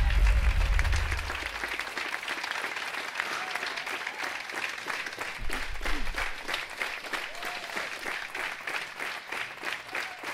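Audience applauding steadily at the end of a stage number, with the last of the music dying away in the first couple of seconds.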